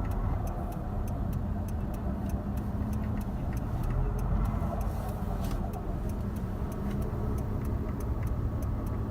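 Daewoo Lanos under way, its drivetrain giving off a loud steady hum from a worn clutch release bearing, which is close to seizing. A fast, regular light ticking runs over it.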